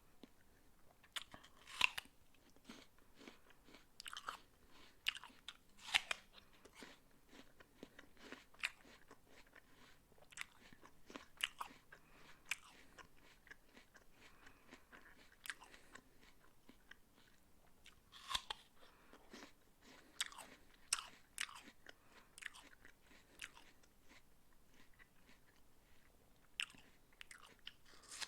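A person biting into and chewing a crisp raw apple: crunchy chews with sharper, louder crunches now and then.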